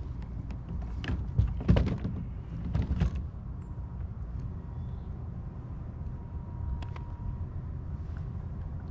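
A cluster of knocks, scrapes and rustling between about one and three seconds in, as a hooked largemouth bass is landed and handled in a kayak, over a steady low rumble.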